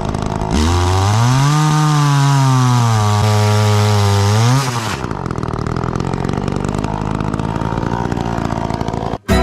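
Two-stroke chainsaw revving up to full throttle about half a second in and held there for about four seconds, its pitch sagging slightly as the chain works through a log. It then drops back to a steady idle.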